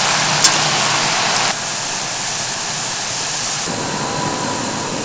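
Enoki mushrooms deep-frying in a pot of hot oil: a steady, rain-like sizzle, with one sharp tick about half a second in.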